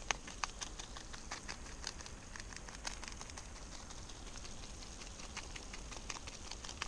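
Eggs with sausage and tomatoes sizzling in a frying pan, with many small irregular crackles and pops.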